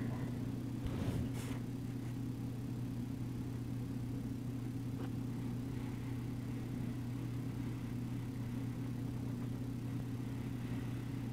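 A steady low hum, with faint scratching of a felt-tip marker on paper about a second in.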